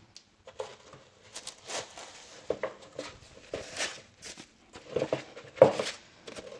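Unboxing packaging being handled: irregular rustling and crinkling with small knocks as the amplifier is lifted out of its box.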